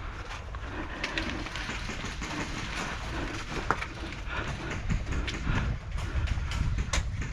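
Rustling, shuffling movement of an airsoft player on the move, over a steady low rumble of handling or wind noise, with a few sharp clicks scattered through.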